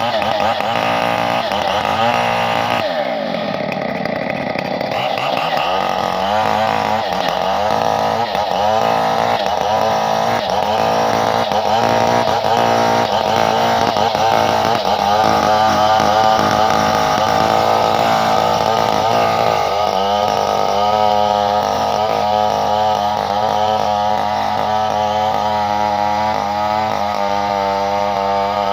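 Chainsaw engine running hard at high revs, its pitch wavering up and down as it works, with a brief drop in pitch and recovery about three seconds in.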